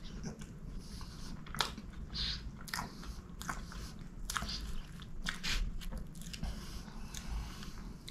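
Close-miked chewing and wet mouth smacks of someone eating soft chocolate gateau, with irregular sharp clicks every half second or so.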